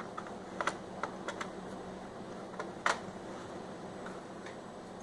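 Scattered light clicks and taps of a laptop hard drive being handled and slotted back into its drive bay, about half a dozen in all, the sharpest just before three seconds in.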